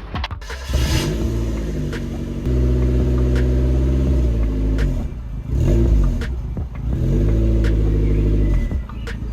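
Mazda MX-5's four-cylinder engine revving: the revs climb and are held steady, dip briefly about halfway through, then climb and hold again before falling near the end.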